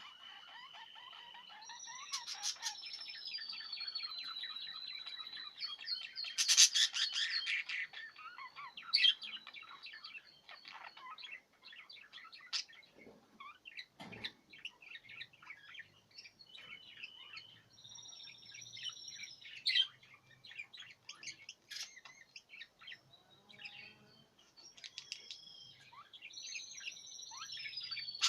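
A pair of budgerigars chattering and warbling, with high whistled notes that slide downward and a louder burst of rapid chatter about a quarter of the way in.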